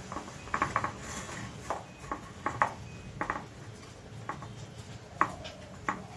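Light, irregular clicks and taps of a rolled momo dough sheet being set onto an ice-cube tray mould on a worktop.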